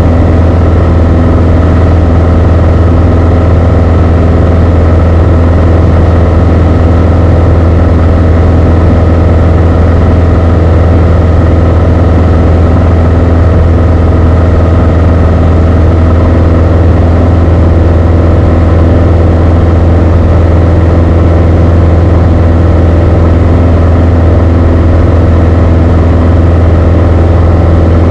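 Beechcraft Sundowner 180's four-cylinder Lycoming O-360 engine and propeller running at a constant power setting, heard inside the cockpit as a loud, unchanging drone.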